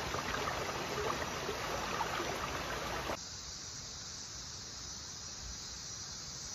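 Steady rush of flowing river water with faint high calls, cutting off abruptly about three seconds in to a quieter, high, even hiss of crickets and other night insects.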